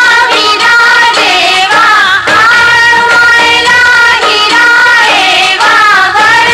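A song in Indian film style: a high voice sings a melody with vibrato over instrumental accompaniment.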